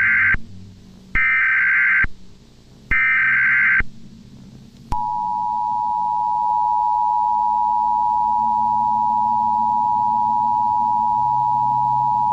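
Emergency Alert System tones. The end of one burst of shrill SAME header data is followed by two more bursts, each about a second long. About five seconds in, the steady two-tone EAS attention signal begins, the alert signal that announces an emergency message.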